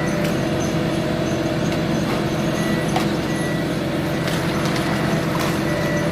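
Heavy diesel machinery running steadily: a constant low engine hum with a short high whine that comes and goes.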